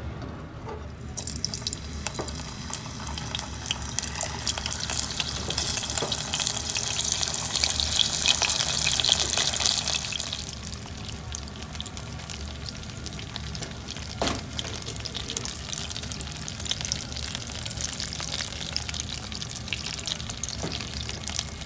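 Gyoza sizzling and spitting in hot oil in a nonstick frying pan. The sizzle starts about a second in and is loudest about eight to ten seconds in. It then settles to a quieter, steady frying sizzle.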